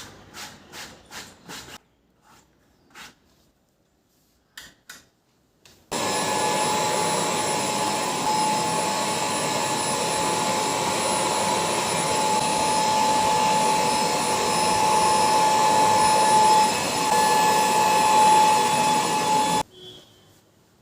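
A series of light clicks and taps, then an AGARO bed vacuum cleaner switched on about six seconds in, running loud and steady with a constant whine, and cutting off suddenly near the end.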